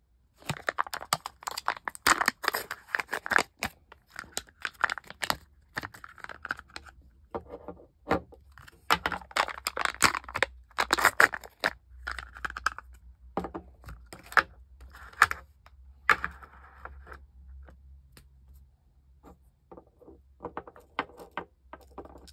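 Stiff plastic ink-cartridge packaging being handled and pried apart: clear plastic trays and snap-on protective caps crackling, scraping and clicking in dense bursts for about sixteen seconds, then a few scattered clicks near the end.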